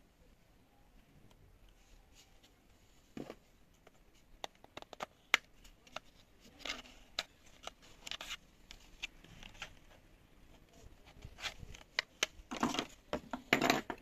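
Hands handling a small plastic computer speaker and prising off its front bezel: scattered sharp plastic clicks and short scrapes, with a denser, louder run of scraping and clicking near the end.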